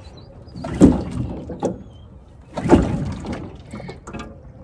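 Small outboard motor being pull-started: two hard pulls about two seconds apart, each a short rasping crank that fades without the engine catching. The motor has died and won't start.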